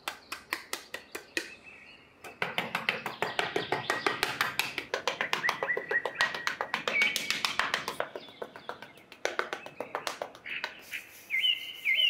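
A small trowel scraping and patting sand in short strokes, a few at first and then rapid and continuous from about two seconds in. Bird chirps run under it and come forward near the end.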